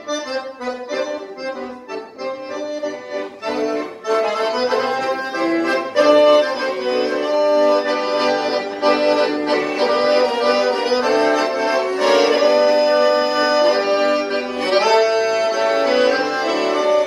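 Piano accordion playing an instrumental passage of a hymn tune, chords and melody held under shifting notes, growing louder about four and again six seconds in.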